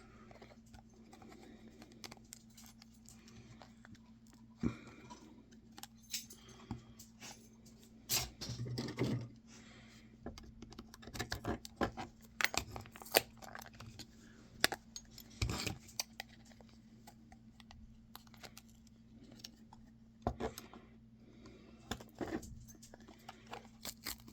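Scattered clicks, taps and short scrapes of small hand tools prying apart cell phones, with small plastic and metal parts knocking together, over a faint steady low hum.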